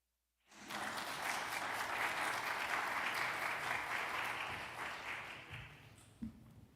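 Congregation applauding after a hymn: the clapping starts suddenly about half a second in, holds steady, then dies away over the last couple of seconds. A single soft thump comes near the end.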